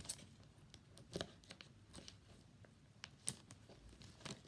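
Faint, sparse clicks and crinkles of plastic toy packaging being handled, a few separate snaps about a second and three seconds in.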